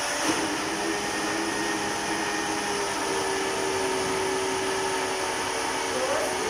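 An electric kitchen appliance's motor running steadily, a constant whirring noise.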